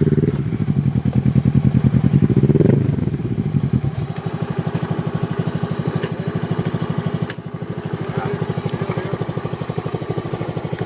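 Motorcycle engine running at low revs with an even pulsing beat. It gives a brief rev rise about two and a half seconds in, then settles from about four seconds into a quieter, steady beat.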